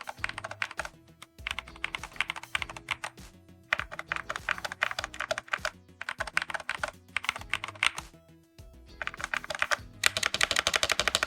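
Typing on a Hall-effect magnetic keyboard with Outemu Jade White magnetic switches: quick runs of keystrokes broken by short pauses, speeding up near the end.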